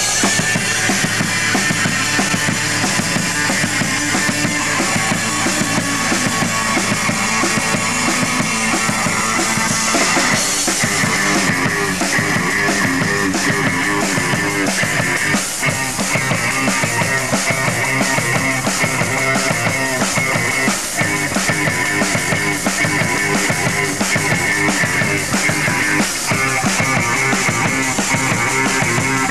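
Live rock band playing: a drum kit with crashing cymbals and an electric guitar, heard from close beside the drums.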